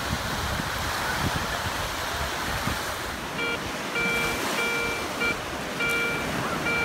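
Small waves of Lake Michigan surf washing onto the beach, with wind on the microphone, for about three seconds. Then a Garrett ACE 250 metal detector beeps repeatedly in short and longer tones as its coil passes over a buried target, which it reads as a penny.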